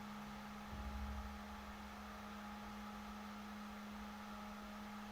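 Steady electrical hum over a low hiss, with a brief low bump of handling noise about a second in.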